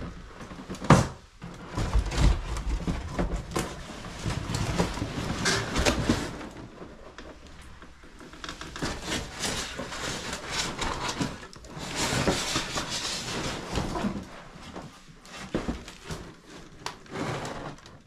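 Footsteps crunching and rustling over a heap of cardboard boxes, paper and household debris, with irregular crackling, scraping and knocks; a sharp knock about a second in is the loudest.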